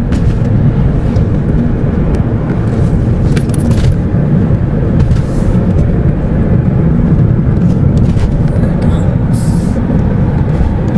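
Steady low rumble of car road and engine noise heard from inside the cabin while driving.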